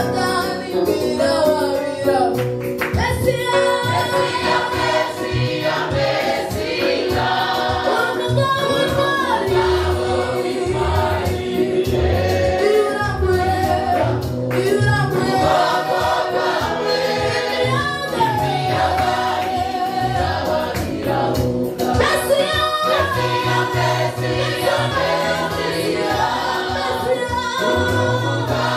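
Gospel praise song: a female lead singer on a microphone with a choir singing along, over instrumental backing with a steady bass line.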